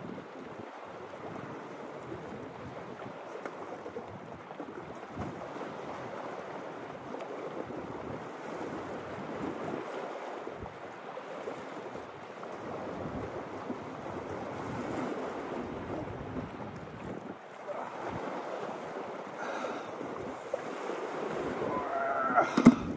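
Steady rush of wind on the microphone and small waves washing against the shore. Near the end, a brief louder burst of sharp knocks and scuffing.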